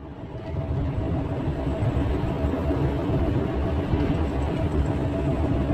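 Engine and road noise heard inside a moving car's cabin, a steady low rumble with a faint hum in it, fading up over the first second.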